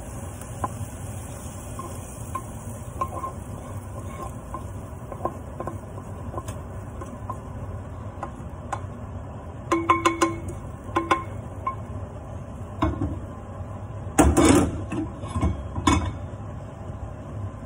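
A wooden spoon stirring and scraping in a metal frying pan and saucepan, with light ticks at first, then a run of ringing clinks and later several louder knocks and scrapes as the pan is emptied into the pot, over a steady low hum.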